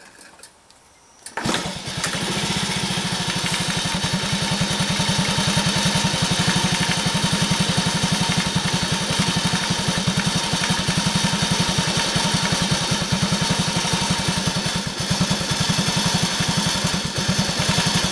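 Honda Super Cub 50's small single-cylinder four-stroke engine starting from cold about a second and a half in, then idling steadily. Right after starting it runs quietly, with no tappet tick yet.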